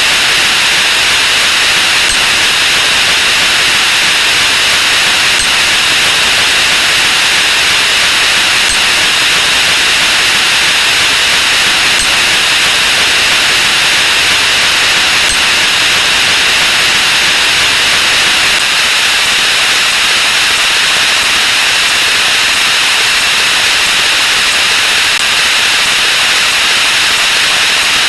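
Loud, steady static-like hiss: counting sound effects sped up 64 times, so dense that they blur into one continuous wall of noise with no separate sounds left.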